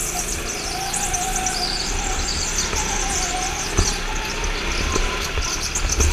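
Indoor rental go-kart engine running at speed, its pitch sagging and rising again as the kart goes through the corners, with wind buffeting on the onboard microphone. Two short knocks come in the second half.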